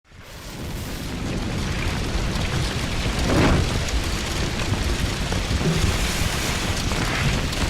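Sound effect of a large fire blazing: a steady rushing of flames with crackling, fading in over about the first second.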